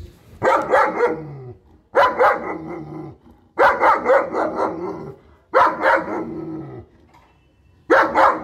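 A dog barking: five loud, drawn-out barks about two seconds apart, some trailing off with a falling pitch.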